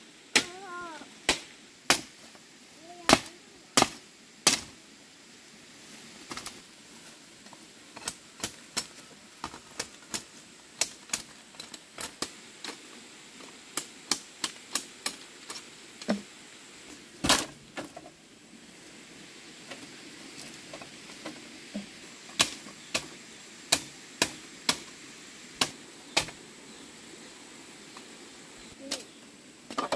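A tool striking again and again in irregular sharp knocks, often two or three a second, like chopping or hammering in hand work.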